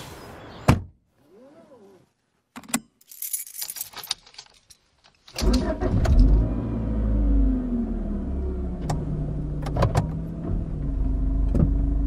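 A sharp knock, then a brief rattle, then from about five seconds in a car engine starts running steadily, with a few clicks over it.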